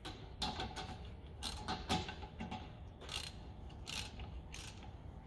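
Socket ratchet clicking in short runs as it snugs up a front brake caliper's two 13mm bolts, with pauses between strokes of the handle.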